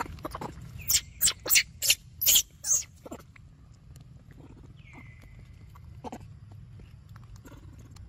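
Baby macaques giving a quick run of about six short, shrill cries over two seconds while grabbing at food. A couple of seconds later comes a faint, thin whistle-like tone.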